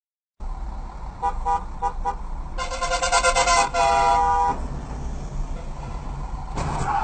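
Car horn honking: about four short toots, then a long blast of about a second and a shorter one right after, over the steady low rumble of traffic.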